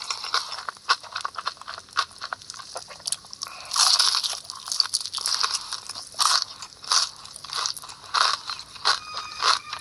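A person biting into and chewing crunchy food close to the microphone: a fast, irregular series of crisp crunches, with a longer, louder crunch about four seconds in.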